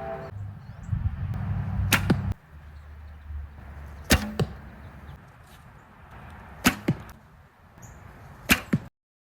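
63-pound Osage take-down recurve bow shot four times at a steady pace; each shot is a sharp snap of the string, followed a fraction of a second later by a smaller knock.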